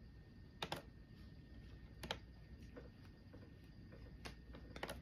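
Faint, irregularly spaced clicks of computer keys being pressed, about half a dozen, over a quiet room.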